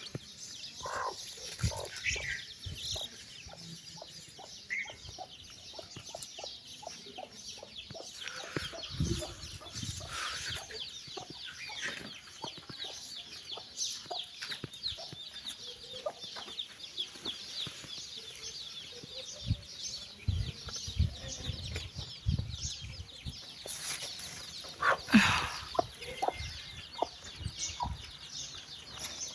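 A mother hen clucking in short, repeated low calls while her chicks peep continuously in quick, high chirps; one louder call comes near the end.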